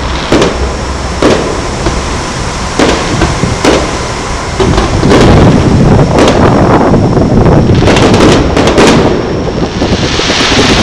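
Aerial fireworks shells bursting: separate bangs about a second apart, then from about halfway a dense barrage of overlapping bangs and crackles, with a hissing crackle near the end.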